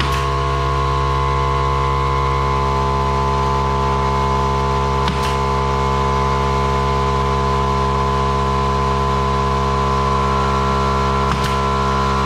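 Electric air compressor motor running steadily, keeping the tank charged for a pneumatic brad nailer. Three faint sharp clicks sound over it, about five and six seconds apart.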